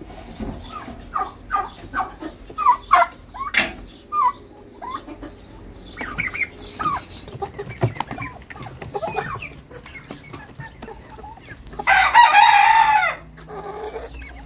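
Domestic turkeys and chickens calling in a pen: a run of short clucks and yelps, then near the end one long, loud rooster crow.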